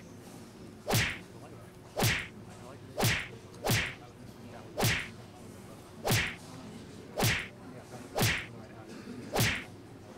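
Open-handed slaps to the face, nine sharp cracks about a second apart.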